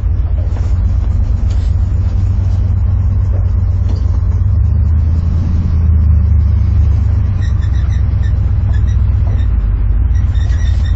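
Old Ford F-250 dually truck's engine and drivetrain running while driving, heard inside the cab as a steady low rumble that swells slightly around six seconds in.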